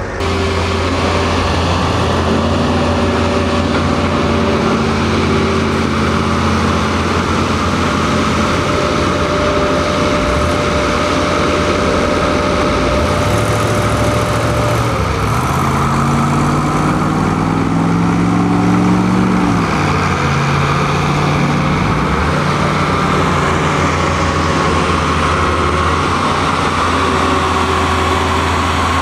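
Heavy engines idling steadily. About sixteen seconds in, one revs up and then settles back to idle.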